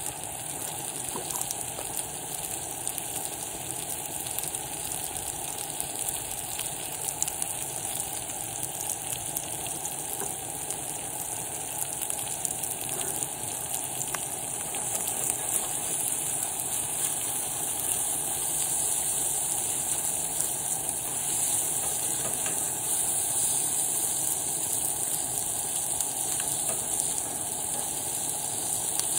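Seafood and ravioli sizzling and simmering in a cast-iron skillet on a camp stove, a steady hiss that grows a little louder about halfway through.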